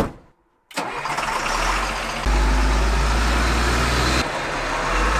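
A sharp bang, then the diesel engine of an M1078 military truck running loudly, its deep rumble growing stronger about two seconds in and easing off a couple of seconds later.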